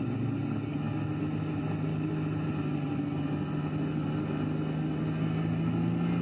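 Snowmobile engine running at a steady cruising speed during a trail ride, a constant hum with no change in pace.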